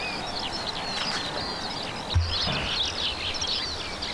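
Many small birds chirping and twittering together, with a brief low thump about two seconds in.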